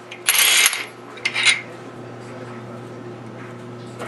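Cordless impact driver on a long socket extension giving a last short burst of hammering on a steering-box mounting bolt. A second later comes light metallic clinking as the socket and extension are handled, then a low steady hum.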